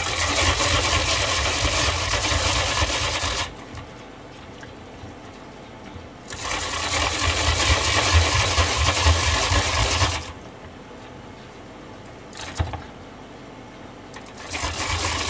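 Daikon radish being grated by hand on a grater: fast back-and-forth rasping in spells of a few seconds with pauses between, and a short knock in the second pause.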